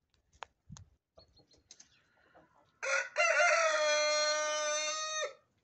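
Light Brahma rooster crowing once, about three seconds in: a short opening note, then a long level held note of about two seconds that ends abruptly. Faint scattered clicks come before it.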